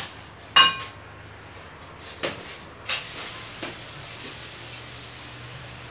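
Clinks and knocks of cafe crockery: one sharp clink that rings briefly about half a second in, a few lighter knocks around two to three seconds, then a steady hiss.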